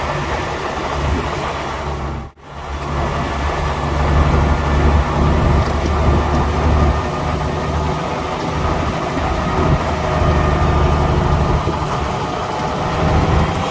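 Heavy diesel engine of a bulldozer running steadily with a deep rumble, pushing soil. The sound drops out for a split second about two seconds in.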